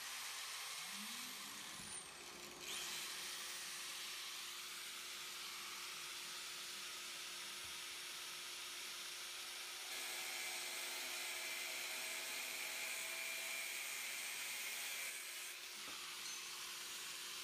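DeWalt angle grinder with a cut-off wheel spinning up, its whine rising in pitch, then cutting through half-inch square steel bar stock: a steady whine under a hissing grind. The grinding eases about fifteen seconds in as the grinder is lifted off the bar.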